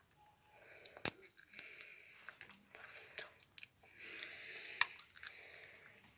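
Irregular crunching clicks and rustling from movement and handling, with a sharp click about a second in and another just before five seconds.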